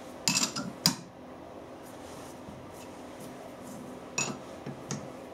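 Short metallic clinks and rattles from a lathe's four-jaw chuck being handled and turned by hand while the work is clocked true: a quick cluster about half a second in and a few more about four seconds in.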